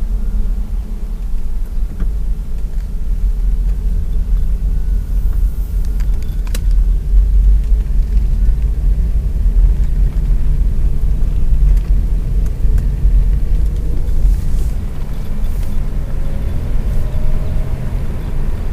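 Steady low rumble of a car driving slowly, engine and road noise heard from inside the cab, with a few faint clicks.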